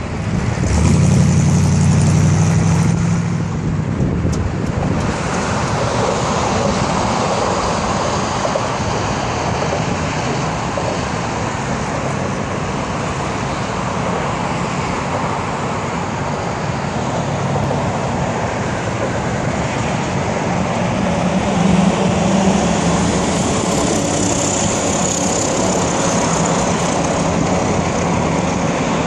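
1960s Chevrolet Impala's V8 exhaust, loud and deep as the car accelerates away during the first few seconds, then giving way to steady road traffic noise.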